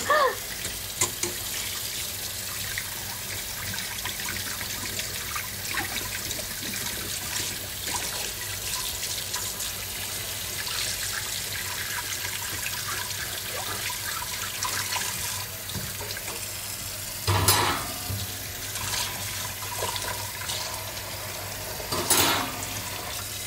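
Kitchen tap running steadily into a sink during hand washing-up of dishes, with two brief louder bursts of noise about three-quarters of the way through and near the end.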